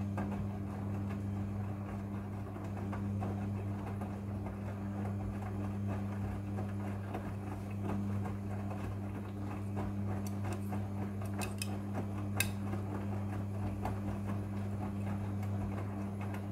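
Front-loading washing machine's motor turning the drum during the wash cycle: a steady hum, with wet laundry tumbling and clattering inside and a few sharp clicks in the second half.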